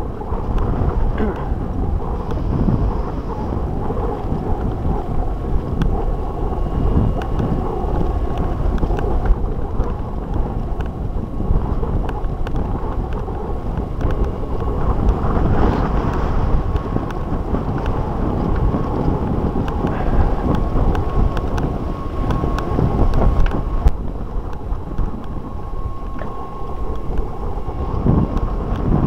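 Wind buffeting the microphone of a camera riding on a moving mountain bike, over a steady low rumble of knobby tyres rolling on a bumpy dirt track, with small knocks from the bumps.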